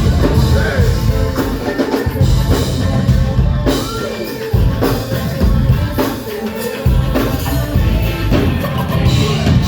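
Live band playing a hip-hop beat between rap verses: drum kit and heavy bass.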